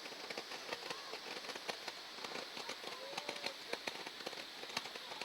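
Fireworks crackling at a distance: a dense, irregular scatter of small pops and snaps.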